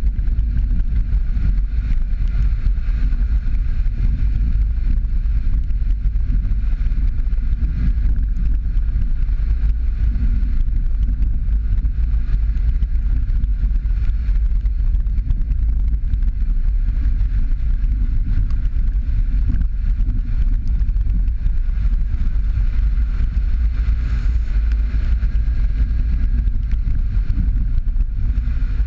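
Jeep Patriot driving along a dirt and gravel track: a steady, loud low rumble of engine and tyre noise.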